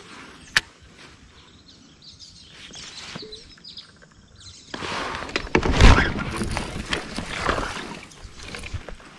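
Water splashing beside a kayak as a small bass is pulled to the surface and grabbed by hand, starting about halfway through, with one heavy thump.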